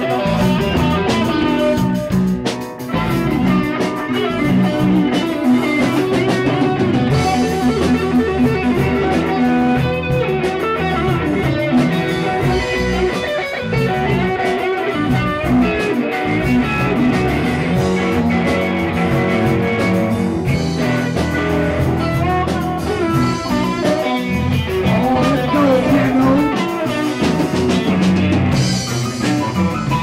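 Live band playing an instrumental passage: a Stratocaster-style electric guitar over a drum kit.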